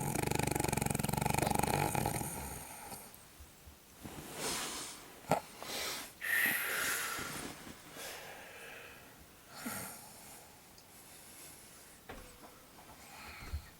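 A woman snoring in her sleep: a long, loud buzzing snore for about the first three seconds, then quieter, irregular breaths with a short sharp click about five seconds in.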